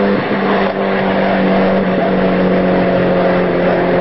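Mitsubishi Eclipse GSX's turbocharged four-cylinder engine droning at high speed as the car pulls away after passing, holding one steady pitch with a slight change about two seconds in.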